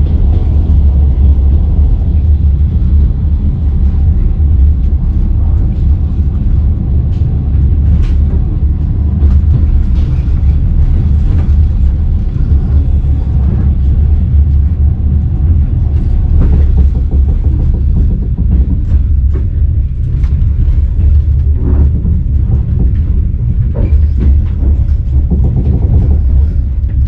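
Passenger train in motion: a steady low rumble of the moving carriage, with scattered knocks and clicks.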